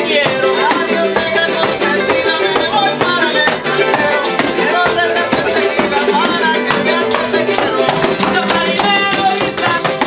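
Live son jarocho music: several jaranas strummed in a fast, steady rhythm with a tambourine shaken and struck over them.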